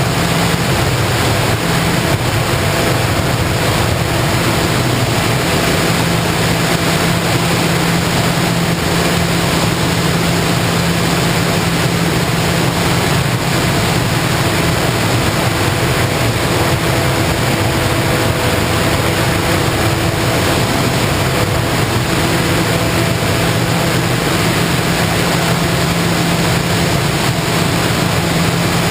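Motor and propeller of an FPV model plane running steadily in flight: an even hum with faint steady tones, under loud wind rush.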